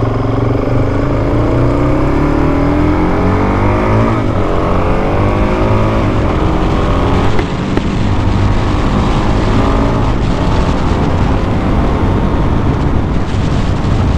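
Single-cylinder dual-sport dirt bike engine accelerating, its pitch rising through the gears with upshifts about four seconds in and again around six to seven seconds, then running at a steadier cruise with wind rush.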